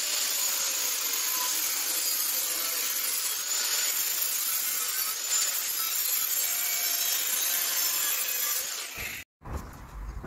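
Titan angle grinder with a cutting disc cutting through a sheet-metal flap on a car's scuttle panel, a steady high-pitched grinding noise that stops about nine seconds in.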